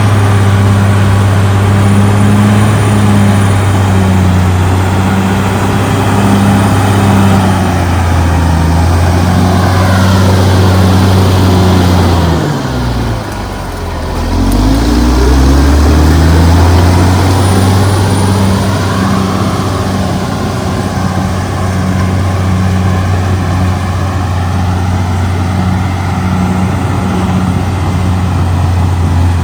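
CAT D6R XL bulldozer's diesel engine running loud and steady under load. About halfway through, the revs drop briefly and then climb back up.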